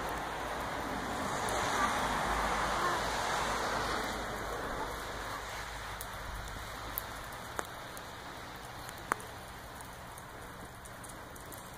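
Steady outdoor hiss of wind and falling snow on the microphone, loudest in the first few seconds and slowly fading, with three faint short clicks in the second half.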